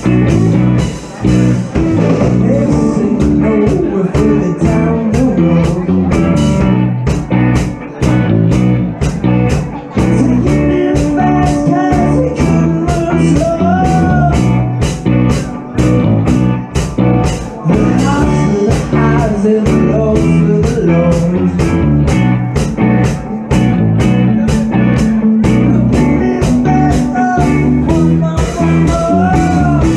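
Live band playing loud: electric guitars over a drum kit keeping a steady beat.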